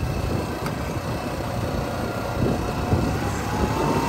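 Quad bike (ATV) engine running while riding along a dirt track, with a rough low rumble; a faint whine rises in pitch about three seconds in as the engine speeds up.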